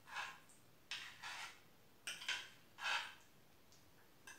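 Spoon scraping and scooping guacamole out of a container into a small bowl: a handful of short scrapes, each under half a second.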